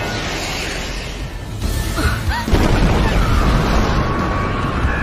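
Anime explosion sound effect of the giant Rod Reiss titan's body blowing apart. It is a continuous deep blast that gets sharply louder about two and a half seconds in, with music underneath.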